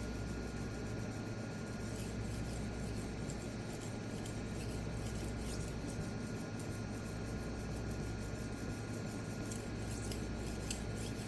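Knife blade being stroked rapidly back and forth across a small 1000-grit resin-bonded diamond pocket stone, a steady scraping, while putting a new edge on a dulled blade.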